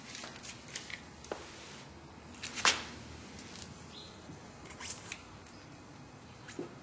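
Scattered small clicks and rustles of handling noise in a quiet room, with a sharp click about two and a half seconds in and another group of clicks just before five seconds.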